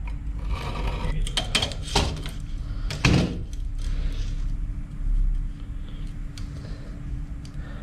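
Scratching and clicking of a vernier caliper's jaw scribing a line on steel bar stock, then a steel tape measure being pulled out and laid along the bar, with a few lighter ticks and a faint steady hum.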